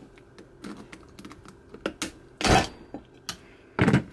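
Light metal clicks and ticks of snap-ring pliers working at a snap ring on a Toyota RF1A transfer case gear bearing, with two heavier knocks of metal parts about two and a half and four seconds in.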